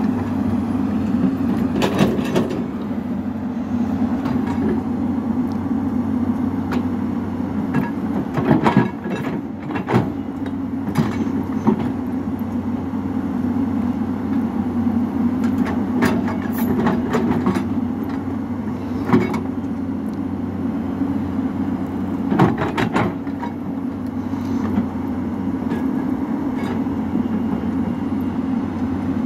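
Hyundai 215L crawler excavator's diesel engine running steadily under digging load. Sharp knocks and clanks now and then, a few seconds apart, from the bucket and boom working wet mud.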